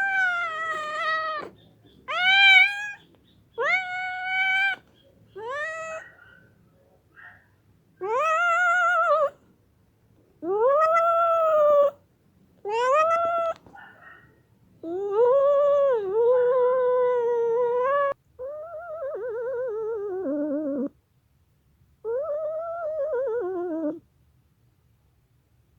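Angry domestic cat yowling: a string of about ten drawn-out, wavering calls with short gaps between them. The last few calls are longer and slide down in pitch, and the calls stop shortly before the end.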